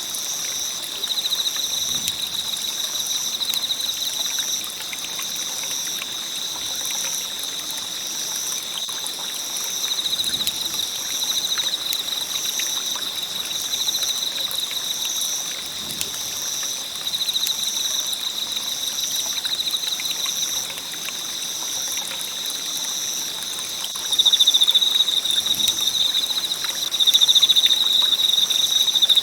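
Campfire burning with a soft hiss and scattered light crackles, under steady insect chirping: a high pulsing call repeating about once a second and a continuous trill that grows louder twice near the end.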